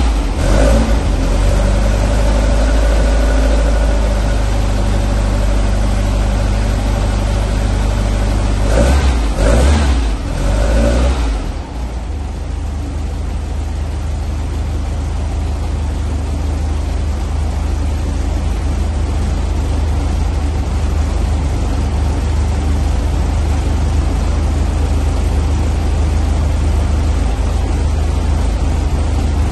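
Freshly built 1914cc VW air-cooled flat-four with dual Weber 44 IDF carburetors and a stainless A1 Sidewinder exhaust, running on an engine stand. It holds a raised speed with a steady whine, is revved a few times about nine to eleven seconds in, then drops to a lower steady idle while its carburetors are adjusted.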